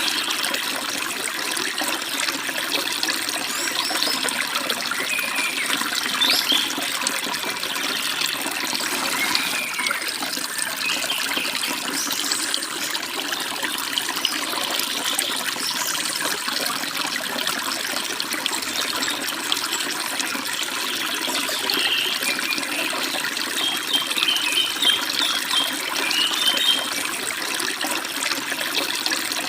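Forest stream babbling and rushing steadily, with small birds chirping above it now and then, most busily in a run of quick chirps near the end.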